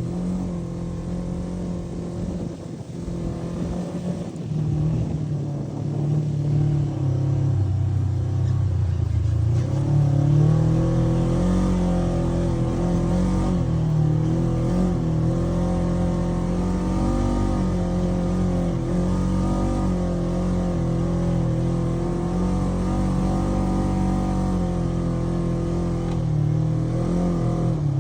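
Polaris RZR 900 UTV's twin-cylinder engine running under load on sand, revs rising and falling as it drives. It gets louder about ten seconds in and holds there.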